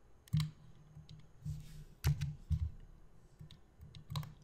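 A few sharp computer mouse clicks, the last two close together near the end.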